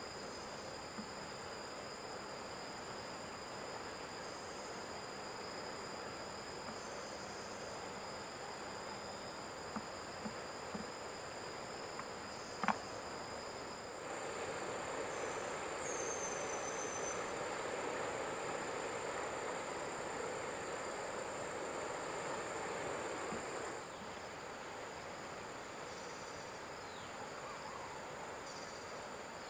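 Insects droning steadily at two high pitches over a broad rushing hiss. The hiss grows louder about halfway through, lasts about ten seconds, then drops back. A few faint clicks come just before it rises.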